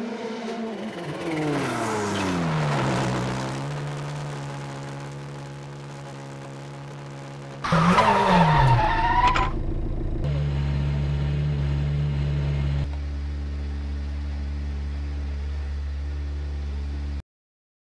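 Volkswagen Polo R WRC rally car engine falling in pitch as it slows, then settling to a steady note. About eight seconds in comes a loud burst of engine and tyre squeal as the car sweeps through a corner. A steady engine drone, heard from inside the cabin, follows and cuts off suddenly near the end.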